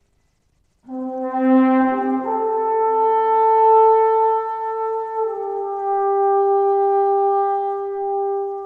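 Slow brass music: several horns holding long notes together in harmony, coming in about a second in, with the chord changing twice.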